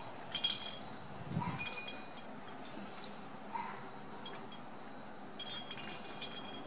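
High metallic tinkling of small chimes in three short bursts: about half a second in, at about one and a half seconds, and again near the end.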